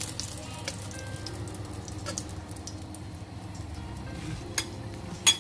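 Salmon fillets frying in a little oil in a wok: a light sizzle with scattered crackles. Near the end a metal spatula knocks twice against a ceramic bowl as the fish is set down.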